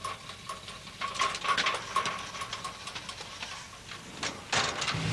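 Soldiers clambering into the back of an armoured vehicle: irregular clatters and knocks of boots and kit on the steel hull and rear doors, with a louder burst of knocks near the end as the doors are shut.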